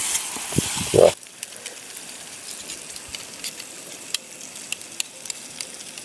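Spice paste with ginger, bay leaves and lime leaves sizzling as it is stir-fried in hot oil, with stirring strokes in the pan. About a second in, the sizzle drops off suddenly to a faint crackle with scattered ticks.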